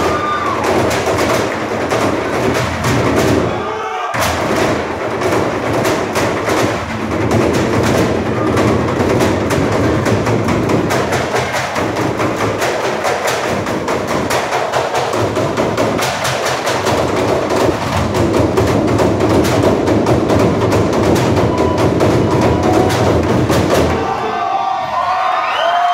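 Group barrel drumming: many drumsticks beating a fast, dense rhythm on barrels and trash cans, with a short break about four seconds in. The drumming stops near the end and the audience breaks into shouts and cheers.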